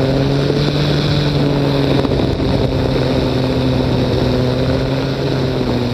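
Ultralight trike's engine and propeller running steadily under a rush of wind noise, the engine's pitch sagging slightly near the end.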